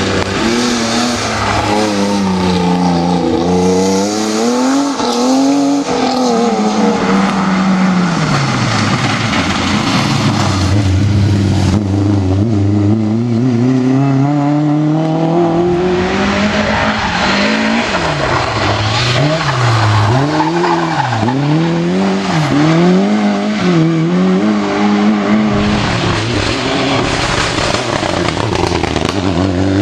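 Rally car engine revving hard through a stage. Its pitch climbs and drops again and again as the driver lifts off and changes gear, with a run of quick dips and recoveries in the second half.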